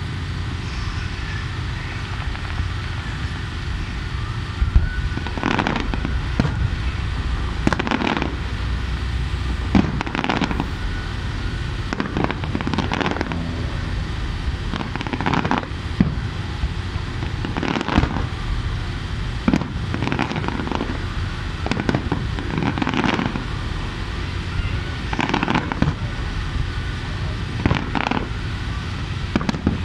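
Fireworks display: aerial shells bursting with sharp bangs every couple of seconds, each trailing off in a brief echo, over a steady low background rumble.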